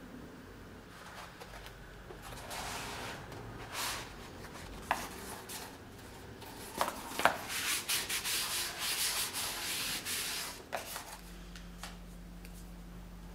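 Stiff leather seat pieces being handled, rubbed and slid against each other and the board, with irregular scraping and a few sharp ticks. The rubbing comes and goes for about ten seconds, then stops.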